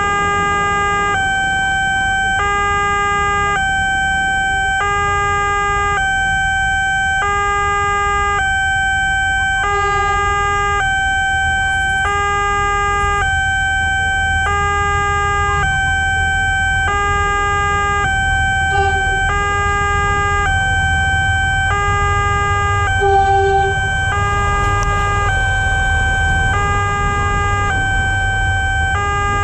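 Railway level-crossing warning alarm from the crossing's loudspeaker: an electronic two-tone signal alternating between its two notes about once a second, warning of an approaching train. Over the last few seconds the low rumble of a KRL electric commuter train grows as it enters the crossing.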